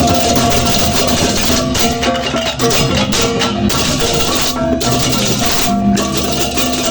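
Balinese gamelan music: metal-keyed percussion and gong tones over drums, dense and continuous.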